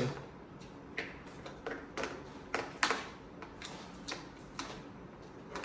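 An officer's sword being handled and fitted into its sword case: about eight sharp, scattered clicks and taps of the sword and case fittings knocking together.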